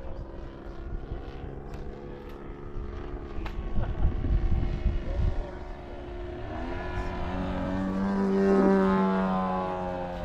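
Radio-controlled model airplane engine with propeller, buzzing steadily. A low rumble comes in around four seconds in. From about six seconds in, a model plane grows louder and its pitch bends as it passes close by, peaking near the end and then fading.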